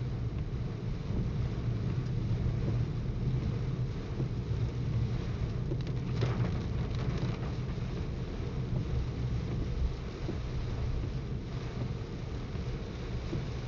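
Inside a car driving through heavy rain: a steady low drone of engine and tyres on the wet road, with rain hissing on the car body and windscreen. About six seconds in, an oncoming car passes with a brief swell of spray hiss.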